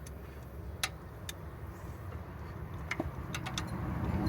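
A few scattered sharp metallic clicks and ticks of tools and engine parts being handled while the timing belt tensioner is adjusted, with a cluster of clicks near the end, over a low steady rumble.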